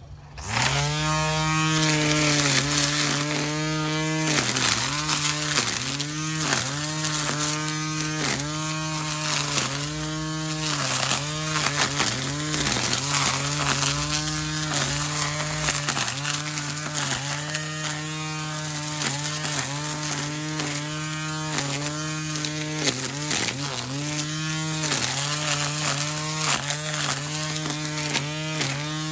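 Hart 40V cordless string trimmer running at full speed, starting about half a second in. Its hum dips in pitch again and again as the spinning line bogs in weeds and branches, and recovers between cuts.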